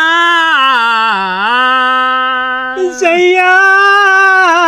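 Unaccompanied male folk singing in Gujarati, drawing out one long held note with a wavering pitch. About three seconds in the voice jumps to a higher note and holds it with a strong vibrato.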